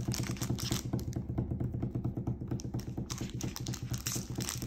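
A rapid drum roll tapped out by hand on a countertop: fast, even taps, about a dozen a second, that stop suddenly near the end.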